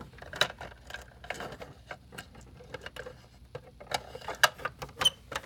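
Irregular light clicks and taps of a plastic fashion doll and toy kitchen pieces being handled, with a few sharper knocks near the end.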